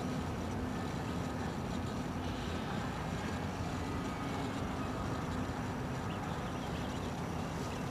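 Radio-controlled model airplane's motor and propeller droning steadily overhead, mixed with a steady rumble of wind on the microphone.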